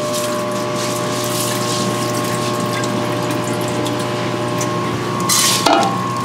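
Steady machine hum with several fixed tones, under the light rustle of dry rice grains being scooped from a plastic bin with a bowl. About five seconds in comes a brief rush as the rice is poured into a metal pressure-cooker pot.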